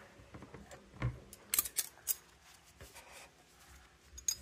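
A few faint, scattered clicks and taps of cutlery on a plate, with a soft thump about a second in.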